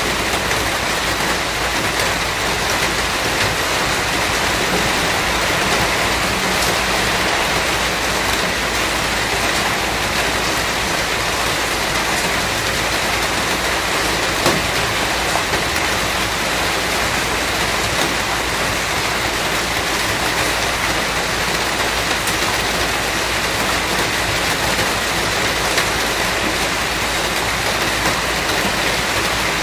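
Steady rain falling as an even hiss, with a few sharper drop taps scattered through it and one louder tap about halfway through. No thunder.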